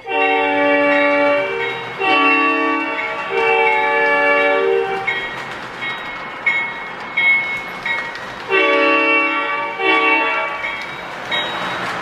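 O scale model train's onboard sound system blowing a multi-chime diesel horn: a long blast, a shorter one and another long one, then a pause of a few seconds, then a long blast and a short one. Under the horn the model's engine and rolling sounds run steadily as it moves along the track.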